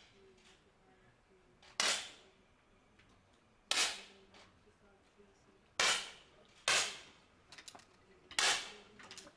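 10 m air pistols firing single shots: five sharp pops at irregular intervals, about two seconds apart at first, then closer together, with a few faint clicks between the later shots.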